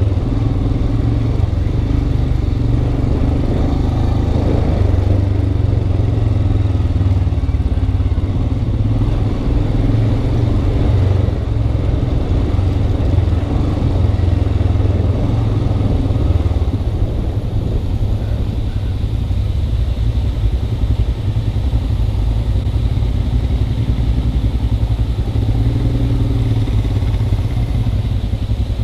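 Motorcycle engine running steadily while the bike is ridden along a rough dirt track, heard close up from the rider's helmet.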